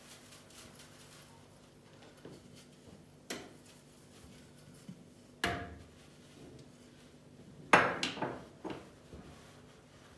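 A few sharp knocks and clatters of a glass and a metal baking tray being handled on a kitchen counter, the loudest a short cluster near the end, over a faint steady hum.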